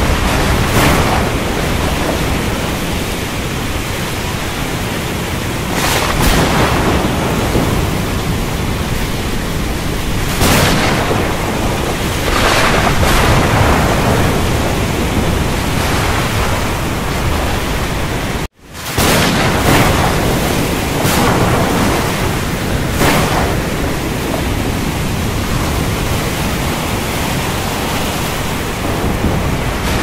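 Heavy rain falling in a steady hiss, with rumbles of thunder swelling up every few seconds. About two-thirds of the way through the sound cuts out abruptly for a split second, then fades back in.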